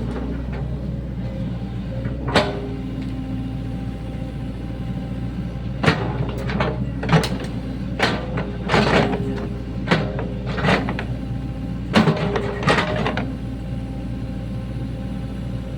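Sany SY75 mini excavator's diesel engine running steadily under working load, with a series of sharp knocks and clanks from the machine as it digs, clustered in the middle of the stretch.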